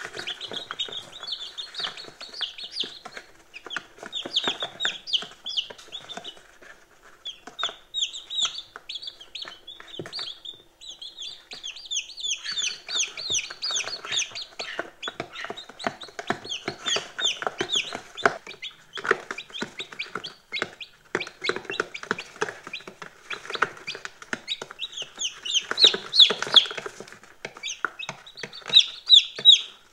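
A brood of day-old chicks peeping: a constant chorus of short, high, falling cheeps that thins briefly about ten seconds in and is loudest near the end. Many light taps run underneath, from beaks pecking feed off the plastic floor of the box.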